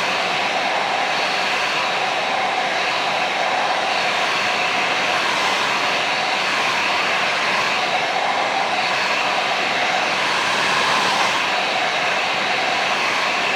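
Handheld blow dryer running steadily: an even rush of air that holds the same level throughout.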